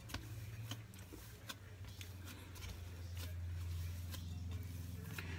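Silicone rubber scraper working stiff cookie dough in a glass mixing bowl: soft scraping with light clicks and taps of the scraper against the glass. A low steady hum runs underneath and grows a little louder about three seconds in.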